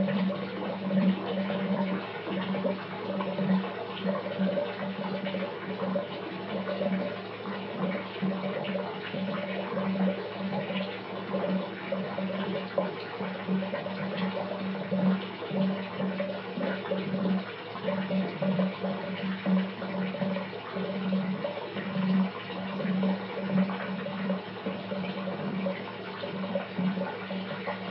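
A bathtub filling: water pouring from the tap into the tub, a continuous rush that wavers unevenly in loudness, with a low steady drumming underneath.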